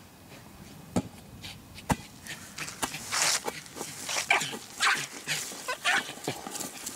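American Eskimo Dog giving a run of short barks and yips in the second half, with two sharp knocks about one and two seconds in.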